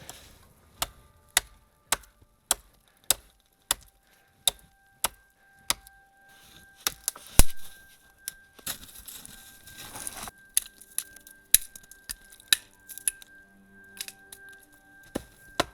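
Hatchet chopping wood: sharp knocks about every half second for the first six seconds, then more irregular blows, a few of them louder.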